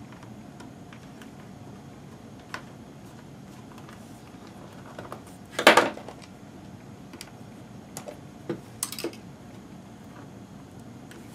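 Vintage HP-55 calculator's plastic case being handled and pried at by hand: scattered small clicks, a louder burst of clacks about halfway through, and a few more taps a little later.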